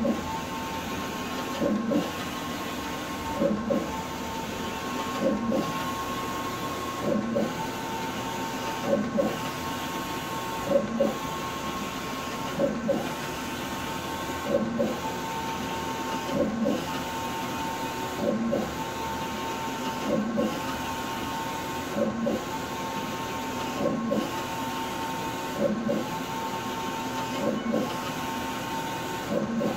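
Wide-format inkjet printer running, its print-head carriage shuttling back and forth across the sheet. A steady whine runs under it, and the sound surges with each pass, about every 1.8 seconds.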